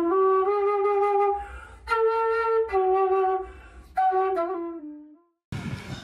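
Background music: a slow flute melody of long held notes, fading out near the end.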